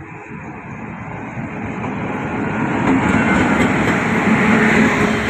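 Express train hauled by an electric locomotive rolling along the station platform, its running noise growing steadily louder as the locomotive comes up and passes close by about three seconds in, then the coaches rolling by.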